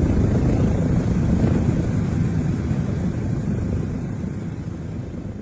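Aircraft noise heard from on board: a steady low rumble of engine and airflow that fades out near the end.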